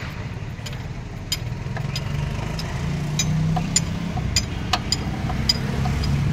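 A steady low engine-like hum runs in the background, with about ten short light clicks and taps scattered through it as metal gear parts are handled inside an open tractor transmission housing.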